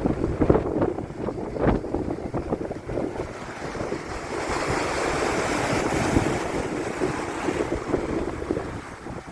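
Atlantic Ocean surf washing onto a beach, with wind buffeting the microphone. A wave swells up about four seconds in and fades away near the end.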